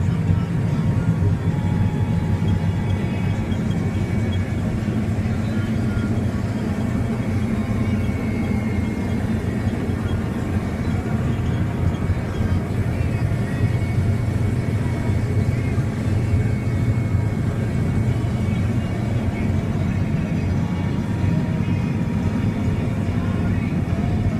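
Harvest machinery running steadily: an even, low engine drone that holds without change, with faint higher tones above it.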